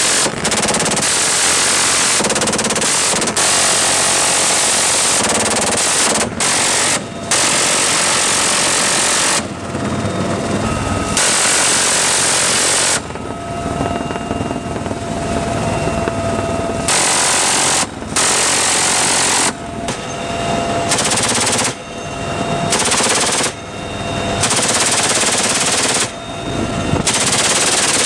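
Helicopter door guns firing many long bursts, chiefly a GAU-17/A electric minigun whose rate of fire blends each burst into one continuous ripping buzz. Between bursts a UH-1Y Venom helicopter's steady turbine whine and rotor noise come through.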